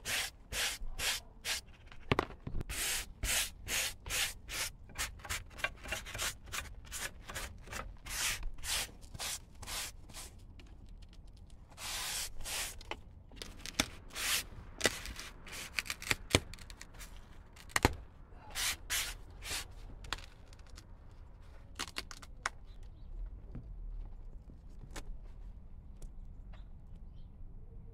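Hand brush sweeping dirt and debris off roofing membrane along the eaves, in quick repeated strokes about two a second. The strokes come in bunches after about ten seconds, thin out a little after twenty seconds and give way to a few small knocks.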